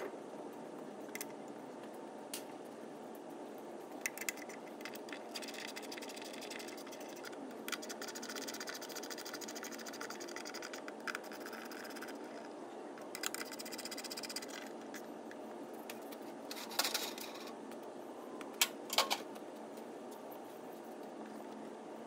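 Hand-tool work on a car engine: scraping and small metal clicks, with two runs of rapid clicking in the middle and a few sharp clicks near the end, over a steady background hum.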